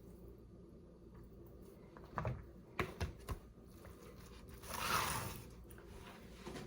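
Quiet handling noises from raw dog-food prep: a few light knocks a couple of seconds in, then a rustle lasting about a second, like plastic packaging or containers being handled.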